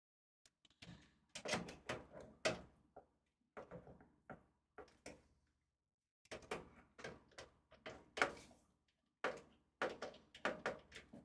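Clusters of light clicks and knocks from handling metal and plastic computer parts inside a desktop PC case, with short pauses between the bursts.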